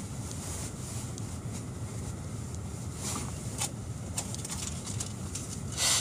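Car idling with a steady low rumble, heard from inside the cabin. Small rustles and clicks of things being handled come through about three and four seconds in, and a louder rustle comes near the end.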